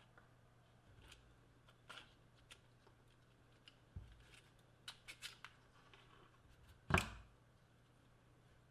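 Scattered light clicks and taps of small hard objects being handled, with one louder knock about seven seconds in.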